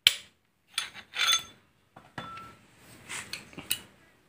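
Metal tools and parts clinking on the bare engine block of a Toyota Avanza 1.5 while its main bearing caps are being unbolted: a string of sharp metallic clinks with a brief ring a little after two seconds in.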